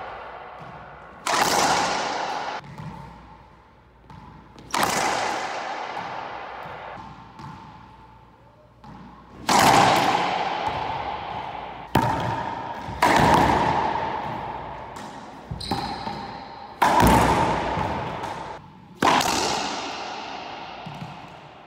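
Racquetball shots on an enclosed court: about eight loud, sharp cracks a few seconds apart as the Gearbox M40 racquet strikes the ball and the ball hits the walls, each ringing out in a long echo. A few quieter knocks fall between them.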